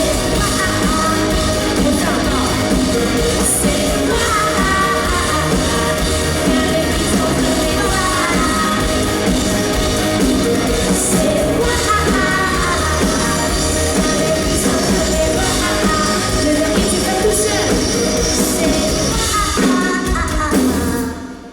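A live pop-rock band plays with a voice singing over it, and the music stops abruptly just before the end.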